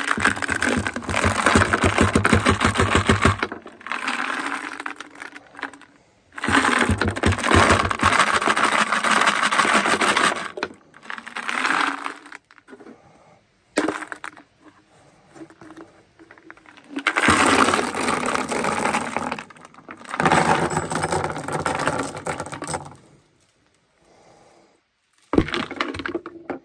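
Dozens of old marbles being shaken out of a hollow chicken figurine, clattering onto a wooden table and knocking against each other. The clatter comes in several bursts of two to four seconds, with short pauses between.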